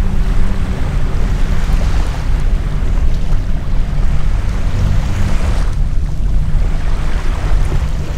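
Loud, steady low rumble of wind buffeting the microphone, over the drone of a formation of single-engine propeller planes passing overhead.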